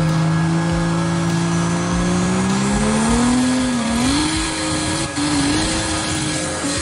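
An engine running at a steady pitch, then revving up about halfway through and holding unevenly at the higher speed.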